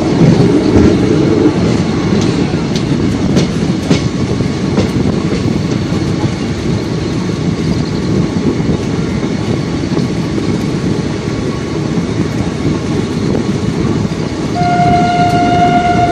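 A passenger train running at speed, heard from aboard the coach: steady rumble and wheel-on-rail clatter, with sharp clicks over the rail joints in the first few seconds. Near the end the train horn sounds one long steady note.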